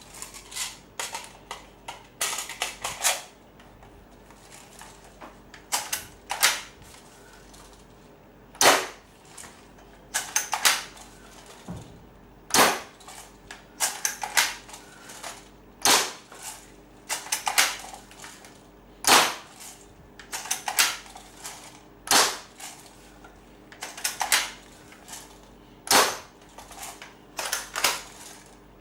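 A&K spring-powered, bolt-action airsoft SVD Dragunov rifle firing again and again, with a sharp crack about every three seconds. Between the shots come clusters of smaller mechanical clicks as the stiff bolt is pulled back to cock the spring for the next BB.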